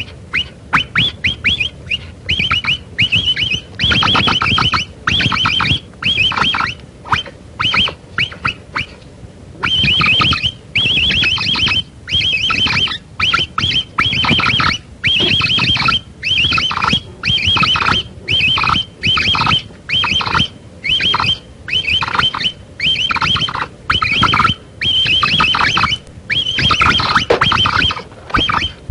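Capybara calling: short bursts of rapid, high-pitched clicks, about one a second, repeated over and over.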